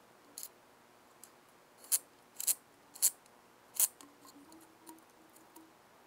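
A handful of sharp metallic clinks at uneven intervals, then a few fainter ticks, from lug nuts and tools being handled at an ATV wheel. The impact tool itself is not running.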